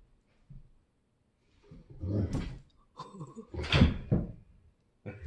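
Dogs play-fighting: two bursts of growling and woofing mixed with heavy thumps, about two seconds in and again from about three seconds in, the second one the loudest.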